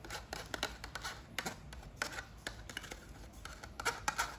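Thin plastic Vinamilk yogurt cup crinkling and clicking in irregular crackles as it is squeezed by hand to push the yogurt out.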